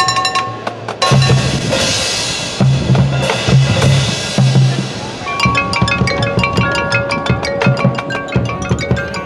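Marching band percussion: drum hits and cymbal crashes, then from about five seconds in a fast run of mallet-percussion notes, marimba and bells, over the drums.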